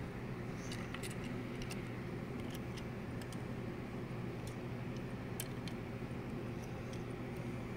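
Steady low background hum and hiss, with a few faint high ticks scattered through it.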